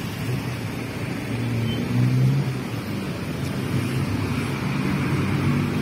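Bus diesel engine running at low revs, a low steady hum that swells briefly about two seconds in, over road traffic noise.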